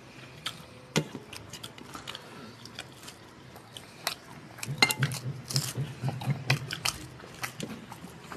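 Close-miked eating sounds of rice and chicken curry eaten by hand: wet chewing and lip smacking with scattered small clicks, busier and louder in the second half.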